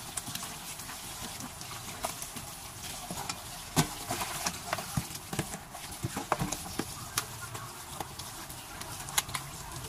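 Tap water running into a stainless steel sink while cut eel pieces are rinsed and rubbed by hand. From about four seconds in come scattered clicks and knocks as the pieces are tipped from a plastic basin into an aluminium pot and handled there, the sharpest near the start of that stretch.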